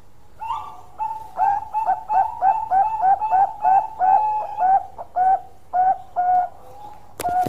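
Bangkok-strain zebra dove (perkutut) singing its long cooing song: two opening notes, then a quick run of short coos at about three a second, slowing to a few spaced notes. A sharp click comes near the end.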